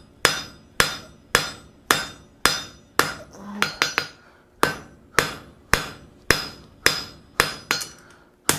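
Hand hammer striking hot mild steel bar flat on the anvil face, about two blows a second with a short break and a few lighter taps near the middle, each blow followed by a brief ring. The blows flatten and spread a wavy preform into a flame-shaped end.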